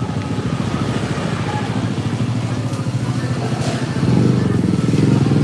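Small motor scooter engine running steadily at low street speed, heard from the rider's seat, getting louder about four seconds in.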